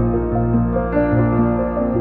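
Background music: calm new-age style instrumental with sustained keyboard or piano notes.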